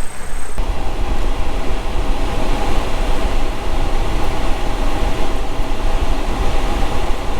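Steady rumble and road noise of a moving vehicle, starting abruptly about half a second in.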